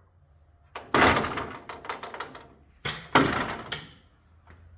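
Two loud thumps about two seconds apart, each with a short tail, from the body of a 1964 Ford Econoline van.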